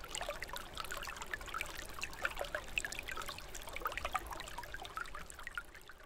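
Small stream of water trickling and babbling, with many quick irregular splashes, fading out near the end.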